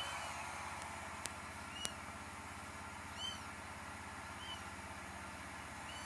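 Young kittens mewing: about five short, high cries, one every second or so. Two sharp clicks come near the start, and a steady low hum runs underneath.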